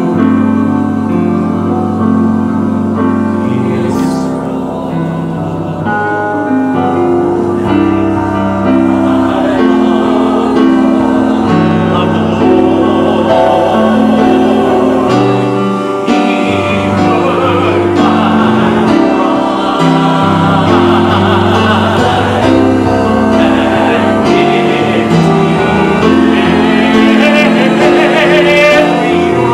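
Small mixed church choir singing an anthem, accompanied by an electronic keyboard played in a piano sound.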